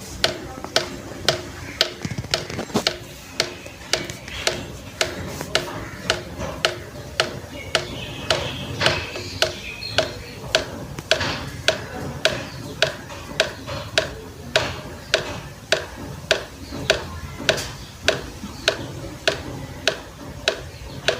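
Water drops falling one after another into water, a short plop about twice a second, each with a brief ringing note, over a low steady background rumble.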